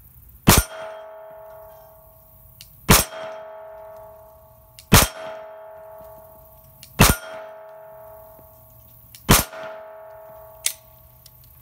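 Five pistol shots from a Glock 26L, about two seconds apart. Each is followed by the ring of an 8-inch steel plate being hit at 25 yards, so all five shots strike the plate. A lighter click follows near the end.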